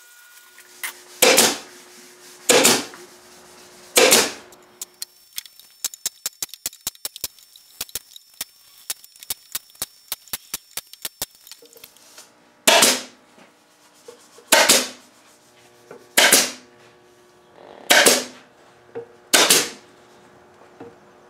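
Pneumatic nail gun firing fasteners into the plywood seat bottom of a wooden chair: eight sharp shots, each with a short ring, three close together near the start and five more spaced a couple of seconds apart in the second half. Between the two groups comes a fast run of faint small clicks.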